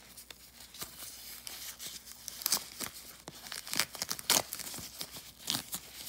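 Tissue paper crinkling and tearing as it is picked and pulled open by hand, in irregular rustles with a few louder rips about halfway through and near the end.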